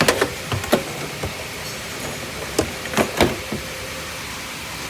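Parts and boxes being handled and moved about: a series of short knocks and clunks, several in the first second and a few more around three seconds in, over a faint steady hum.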